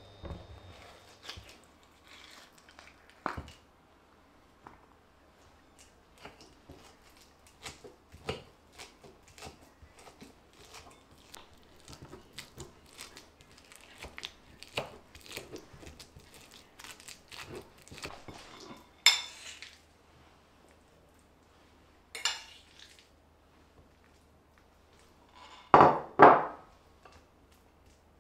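Dishes and kitchen utensils handled while preparing food: a long run of light taps and clicks, then a few sharper clatters, the loudest a quick double knock near the end.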